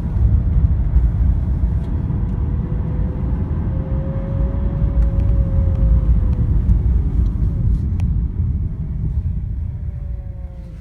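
Car engine running with a heavy low rumble and a thin whine from the power steering pump, which rises a little in pitch around the middle and then falls away. The overall level drops near the end. The owner traced the whine to the pump cavitating.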